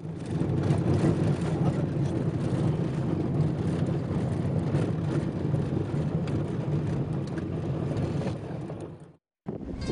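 Steady low rumble of a bus's engine and road noise, heard from inside the moving bus. It cuts off suddenly near the end.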